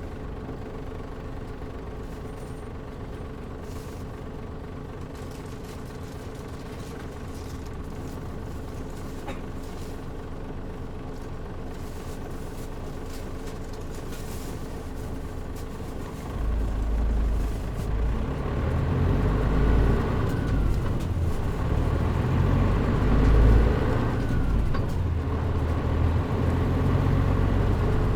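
Mitsubishi Fuso Aero Star city bus diesel engine running steadily at low speed. About 16 seconds in it grows much louder as the bus pulls away and accelerates, its pitch climbing and falling back twice as it goes up through the gears.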